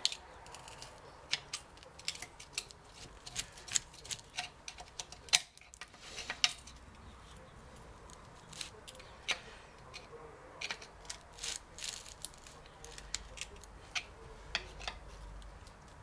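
Screwdriver clicking and scraping against a gearbox casing as the differential housing is pried free: irregular sharp metal clicks, the loudest about five seconds in.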